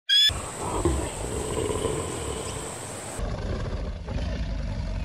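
A bald eagle's brief high call at the very start, cut off sharply, followed by lions growling low over a continuous rough, noisy background.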